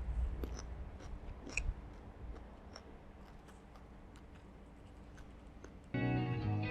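Someone eating, with faint chewing and small scattered clicks and crunches, quietening as it goes. Strummed guitar music comes in near the end.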